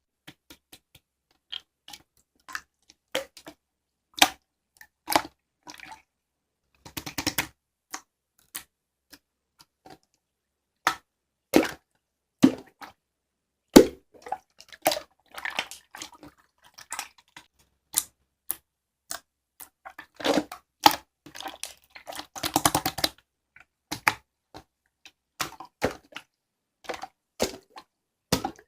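Irregular sharp clicks and taps, about one or two a second, with short runs of rapid clicking about seven seconds in and again near the end.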